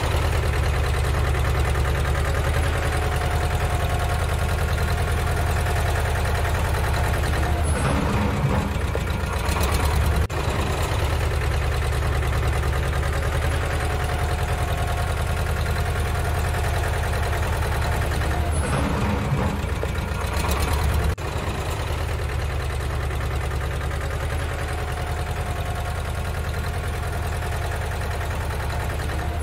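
Engine idling sound effect: a steady low rumble that repeats as a loop about every eleven seconds, joined abruptly twice.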